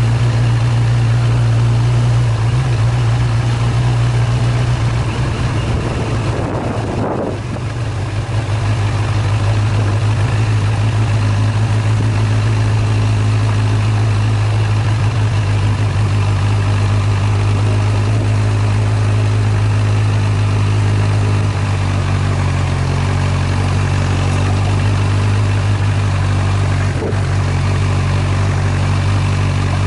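Vehicle engine running steadily while riding along a dirt track, a constant low drone with road and wind hiss. It eases off briefly about a quarter of the way in, then picks up again, and its pitch shifts slightly about two-thirds through.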